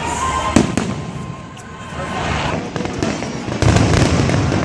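Aerial fireworks bursting: two sharp bangs about half a second in, another around a second and a half, then a cluster of bangs with a low rumble near the end.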